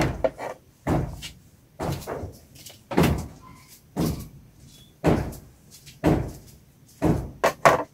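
A series of dull knocks and thumps, about one a second, each fading quickly: handling and movement bumps picked up by a clip-on microphone as things are moved about.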